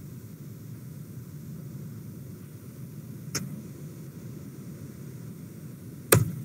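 Steady low hum of background noise with two sharp clicks: a faint one about three and a half seconds in, and a much louder one near the end. The clicks fit a computer mouse being clicked while PowerPoint slides are changed and the program is closed.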